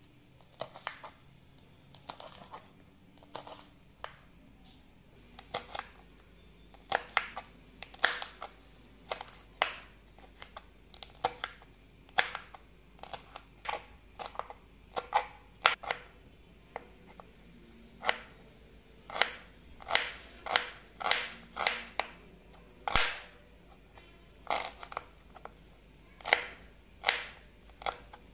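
Kitchen knife chopping green chillies and onion on a plastic chopping board, the blade tapping sharply on the board in irregular strokes, sometimes in quick runs.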